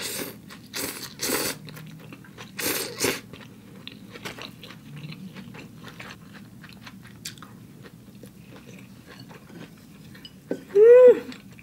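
Rice vermicelli noodles slurped in four quick noisy pulls, followed by quiet chewing with small mouth clicks. Near the end comes a short voiced 'mm' that rises and falls in pitch.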